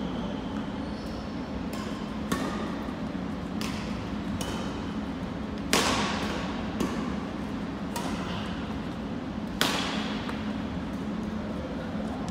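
Badminton rackets hitting a shuttlecock in a rally: a string of sharp hits about a second apart, the two loudest about six and nine and a half seconds in, each with a short echo in the gym. A steady low hum runs underneath.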